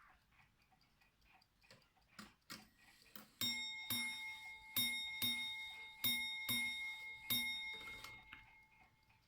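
Ship's bell clock ticking, with two sharper clicks, then striking its bell in pairs, four pairs in all with the two strokes of each pair about half a second apart. That is eight bells, the count that ends a four-hour watch.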